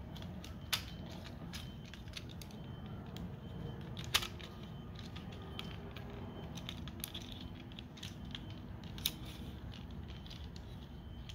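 Plastic parts of a Transformers Legacy United Sandstorm figure being handled and squeezed together: scattered small clicks and rattles, the sharpest about four seconds in, over a faint steady background hiss.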